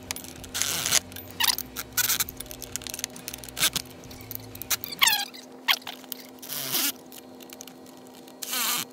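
Milwaukee cordless electric ratchet in several short runs on the seat-mount bolts, each run a brief whine falling in pitch, the longest near the end. Clicks and clatter of wrenches and metal hardware being handled come in between.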